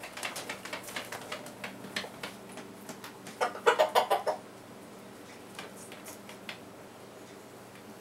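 Rooster clucking in short, quick calls while mounting a shoe, with a louder run of rapid clucks about three and a half seconds in.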